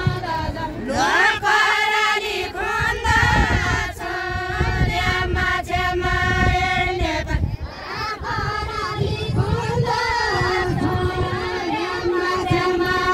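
A group of women singing a Deuda folk song together in long, held notes. The phrase breaks off about seven and a half seconds in, and a new one begins.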